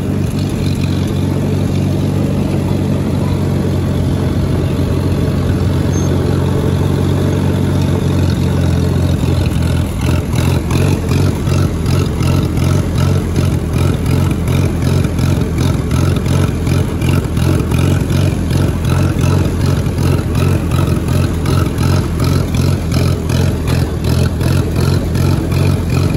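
Allis-Chalmers WD-45 tractor's carbureted engine running under light load, then from about ten seconds in sputtering and popping in an even rhythm, two or three pops a second, as it bogs in third gear on a slight uphill. The owner suspects a bad carburetor float.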